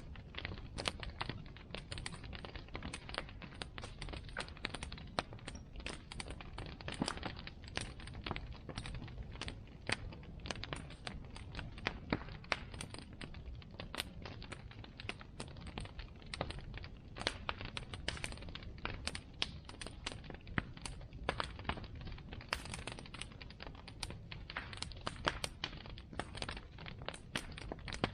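Bonfire crackling: a dense, irregular run of sharp snaps and pops from the burning wood over a steady low rush of the flames.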